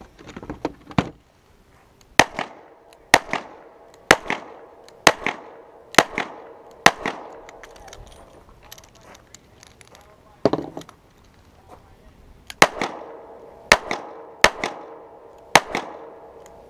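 Pistol shots fired one at a time, about a second apart, each with a short echo: six in a row, then a pause with a duller thump, then five more near the end. A few light clicks come just before the first shot.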